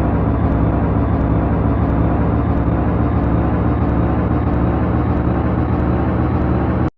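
Train running, a loud steady low rumble that cuts off abruptly near the end.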